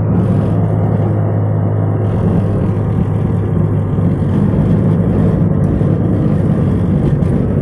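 Car driving at a steady speed, with steady low engine and road rumble heard from inside the car.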